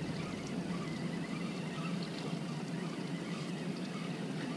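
Low, steady background noise aboard a small boat on calm water, with no distinct single event standing out.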